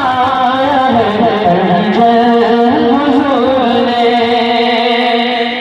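A melodic musical interlude: sustained, wavering melody lines with ornamented turns and no words.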